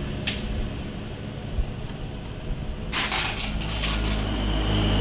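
Two-stroke motorcycle engine idling low and steady through an aftermarket muffler, with a few short rasping noises as a hand works at the muffler outlet, the longest about three seconds in.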